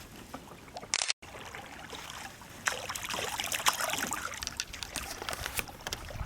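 Water splashing and dribbling right beside a canoe: many small, crisp splashes and drips, busier in the second half. The sound drops out completely for a moment about a second in.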